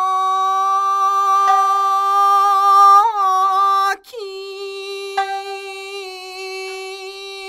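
A woman singing unaccompanied, holding one long high note; about four seconds in she breaks off briefly and then holds the same note again, more softly.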